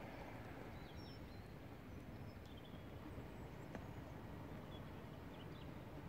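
Faint outdoor background hiss with a few short, high bird chirps scattered through it.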